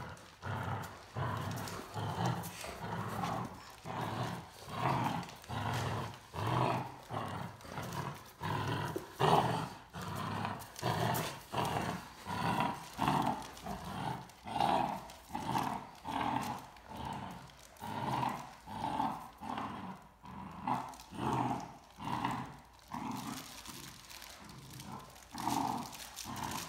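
Great Dane puppy growling during tug of war, in a steady run of short, evenly spaced growls, about three every two seconds, fading near the end.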